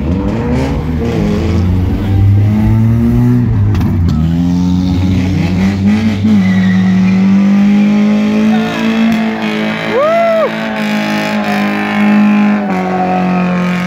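Car engines revving hard, climbing in pitch and dropping several times as cars pull away doing burnouts, then one engine held at a steady high rev for several seconds.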